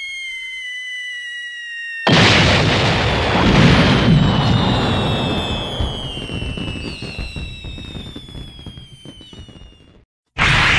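Cartoon sound effect of a bomb drop: a falling whistle for about two seconds, then a loud explosion that fades out slowly over several seconds with scattered crackles.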